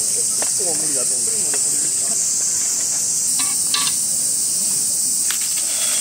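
Steady, high-pitched chorus of insects chirring, with faint voices in the background during the first second and a few light crinkles of a chocolate wrapper being handled near the middle and end.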